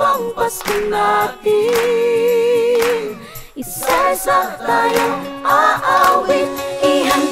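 A choir singing a Tagalog Christmas song, nearly a cappella, with long held notes.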